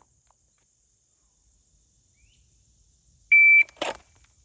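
Shot timer's start beep: one short, high, steady tone about three seconds in, followed a moment later by a brief clack.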